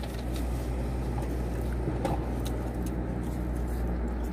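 Steady low hum of a car idling, heard inside the cabin, with a few faint clicks.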